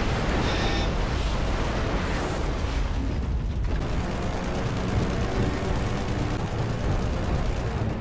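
Dense, continuous rumble of anti-aircraft gunfire and flak explosions around a diving Mitsubishi Zero, with no single blast standing out.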